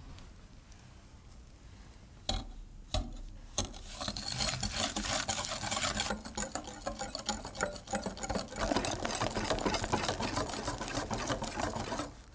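Wire balloon whisk beating egg yolks and sugar in a glass bowl. A few separate clinks come about two seconds in, then rapid, steady whisking with the wires clicking and scraping against the glass, which stops just before the end.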